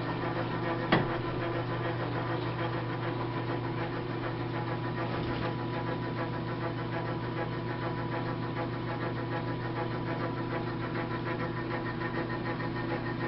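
South Bend lathe running steadily, its motor and drive giving a constant hum. One sharp knock about a second in.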